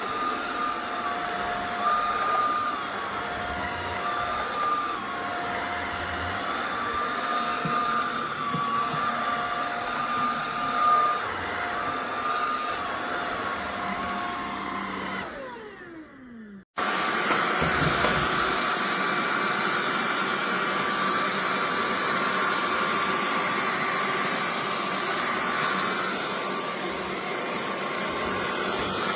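Buture JR400 cordless stick vacuum running steadily with a wavering whine. About sixteen seconds in, its motor winds down with a falling pitch and goes quiet for a moment. It then starts straight up again, slightly louder and hissier.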